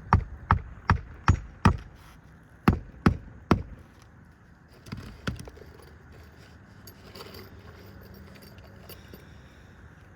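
Hammer driving roofing nails into asphalt shingles: a run of five sharp strikes about two and a half a second, a short pause, three more, then two softer taps about five seconds in.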